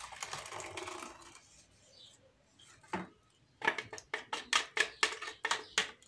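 Thick batter pouring out of a plastic blender jar into a bowl, then a spatula scraping and knocking inside the jar in a quick run of clicks, about four a second, over the last couple of seconds.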